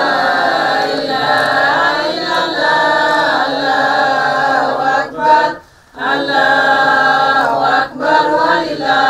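A group of voices singing or chanting together in unison, in held phrases of about a second each, with a short break about five and a half seconds in.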